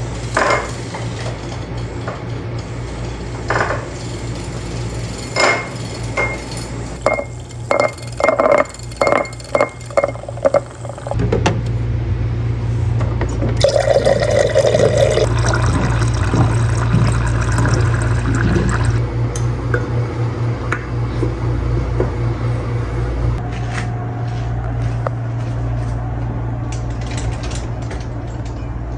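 A utensil clinking against a drinking glass repeatedly as a drink is mixed, then water pouring into a glass and filling it for several seconds.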